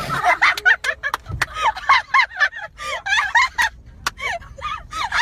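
Dogs barking and yelping at each other in quick, rising-and-falling calls, several a second, with a few sharp clicks among them.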